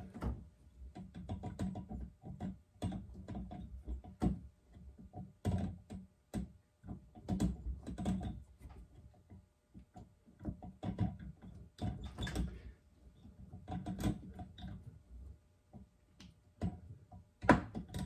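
Small copper pipe cutter being turned around a copper water pipe by hand: its cutting wheel scraping and clicking in short bursts with each swing, with a sharp click near the end.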